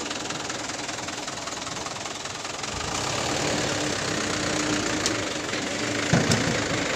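Large truck's engine running as the truck creeps forward, getting louder about three seconds in, with a few sharp clicks near the end.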